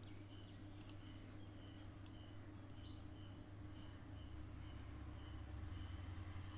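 Faint, steady high-pitched trill pulsing a couple of times a second, over a low steady hum.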